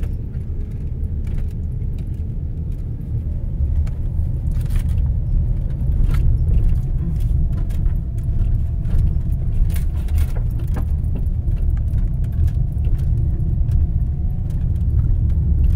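A car driving slowly on a rutted dirt road, heard from inside the cabin: a steady low rumble of engine and tyres, with scattered clicks and rattles as it goes over bumps. It gets a little louder from about four seconds in.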